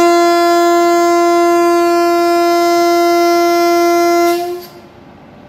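WAP-4 electric locomotive's air horn sounding one long, steady single-note blast of about four seconds, then stopping.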